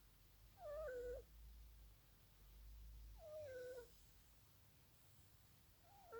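Scottish cat snoring: short whistling snores, each sliding down in pitch, about every two and a half seconds, two full ones and a third beginning at the end. The owner puts the snoring down to the breed's nose structure.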